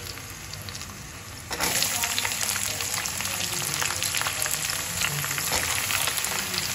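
Hot oil with whole spices and chillies sizzling in a kadai. About a second and a half in, sliced onions go into the oil and the sizzling suddenly gets much louder, a steady hiss with many small pops.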